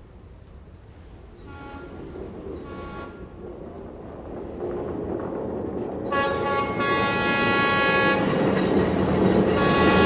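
Train horn sounding over the low rumble of an approaching locomotive: two short blasts, then a long blast about six seconds in and another near the end, as the rumble grows steadily louder.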